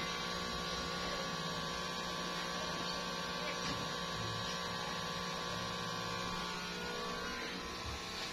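A steady hum with several held tones over a low background hiss, unchanging throughout.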